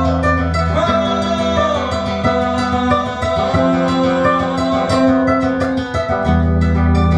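Amplified acoustic guitar played live, fingerpicked: long ringing bass notes open it, give way to a run of quick plucked notes, and return about six seconds in.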